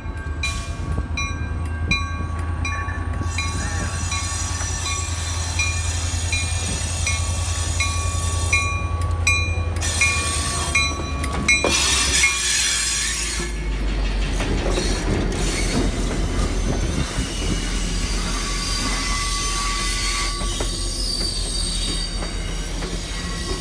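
Diesel passenger locomotive approaching with a steady engine drone and a bell ringing about twice a second. About halfway through, the locomotive passes close by and the bell stops, giving way to the deep rumble and clatter of passenger coaches rolling past.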